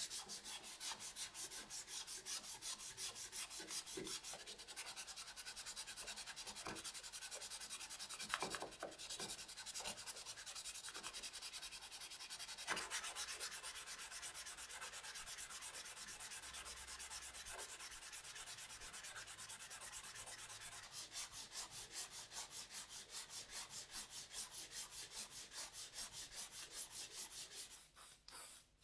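Sandpaper rubbed back and forth by hand over a red plastic soldering-iron handle half, a steady scratchy rasp of quick strokes that become very even in the second half and stop near the end.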